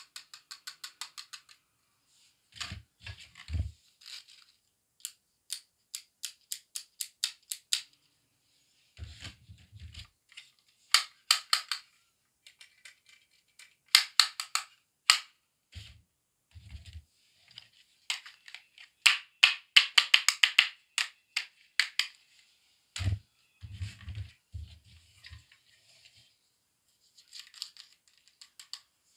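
Small plastic toy beauty accessories, such as a doll's hair dryer, curling iron and hairbrush, being handled: runs of light sharp clicks and clatters, with a few dull thumps as pieces are set down on the table.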